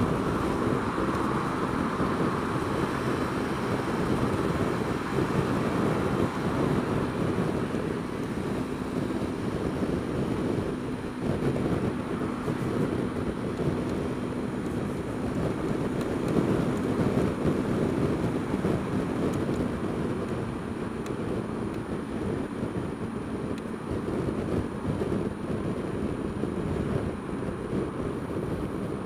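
Steady wind rush on the microphone of a camera mounted on a moving Honda Dio scooter, mixed with the scooter's running and the noise of traffic around it.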